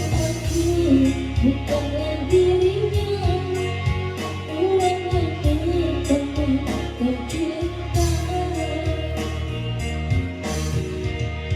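A woman singing a melody over backing music with a steady beat.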